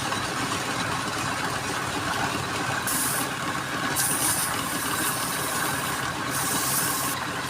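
Wood lathe running steadily, with three short bursts of high-pitched cutting noise about three, four and six seconds in as a turning tool is put to the spinning wood.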